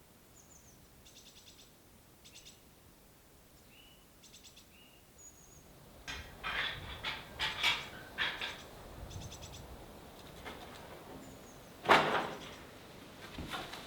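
Small birds chirping and giving short high trills, getting louder and busier after about six seconds. A single sharp knock about twelve seconds in.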